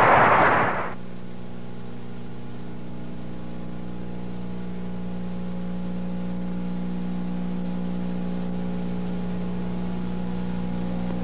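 Blank or damaged videotape playing back: a loud static hiss for the first second, then a steady electrical hum with several evenly spaced overtones for the rest.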